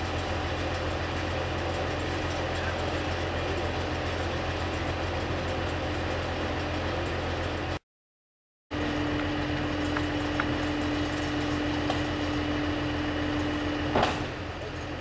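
Large diesel engine of heavy lifting equipment idling steadily with a low hum. The sound cuts out for about a second midway, and a sharp knock comes near the end.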